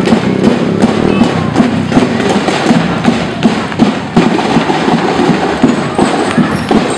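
School marching band playing in a street parade: drums beating a steady march rhythm, loud and crisp, with a melody over them.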